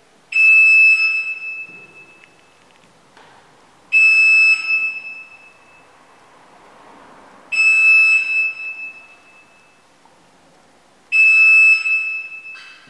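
A loud electronic beep repeats four times, about three and a half seconds apart. Each is a high tone held for under a second that then trails off over about a second.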